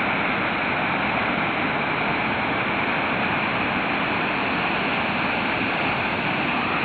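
Floodwater rushing, a steady even roar of water with no breaks.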